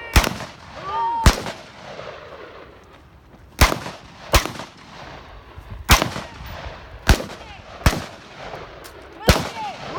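Single rifle shots from M4-type carbines, about eight fired at an irregular pace of roughly one a second, each a sharp crack with a short echo.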